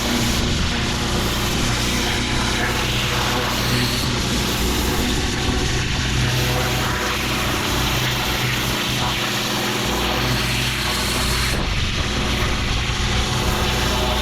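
Pressure washer running steadily: the engine's constant drone under the hiss of the high-pressure water spray.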